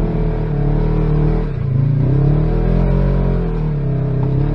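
Side-by-side UTV engine running under throttle on a rough trail, its pitch rising and falling with the throttle; it eases off about a second and a half in, then picks up again.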